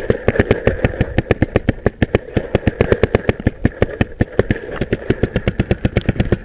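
Paintball marker firing in a steady rapid stream of sharp pops, about six shots a second without a break.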